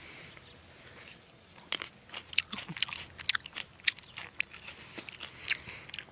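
A person biting into and chewing fresh grapes: a quick, irregular run of crisp, wet crunches and clicks that starts about a second and a half in and dies away near the end.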